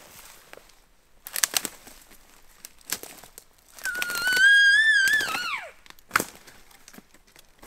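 Elk cow call: one long high whine about four seconds in, held for about a second and then sliding steeply down in pitch. Around it come the crunch and crackle of footsteps through brush and deadfall, with a sharp stick snap about six seconds in.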